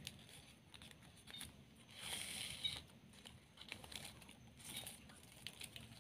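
Faint rustling and crinkling of ribbon being handled and folded by fingers, with a louder rustle about two seconds in and another near five seconds.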